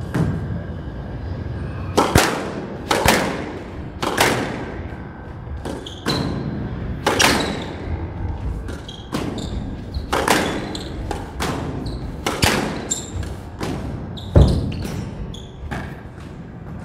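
Squash rally: the ball is struck by rackets and smacks off the front wall about once a second, some hits in quick pairs, each with a short ringing tail, over a steady low rumble.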